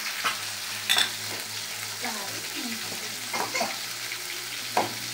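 Chilli sambal sizzling in a non-stick frying pan while a wooden spatula stirs it, with a few sharp scrapes and clicks against the pan. Near the end the stirring turns into quick regular scraping strokes, about four a second.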